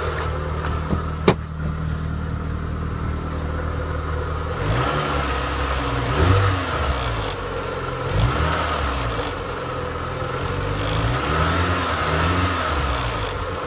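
Renault Clio 182's 2.0-litre four-cylinder engine running on a cold start, with a sharp click about a second in. From about a third of the way in, the engine speed rises and falls several times. The noise is what the owner puts down to a knackered water pump.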